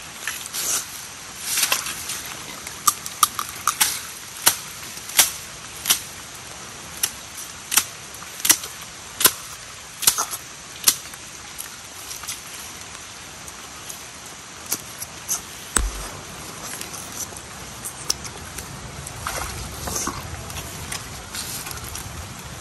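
A machete striking into wet soil and roots in repeated sharp chops, about one every three-quarters of a second for several seconds, then fewer and more scattered. A steady hiss of rain runs underneath.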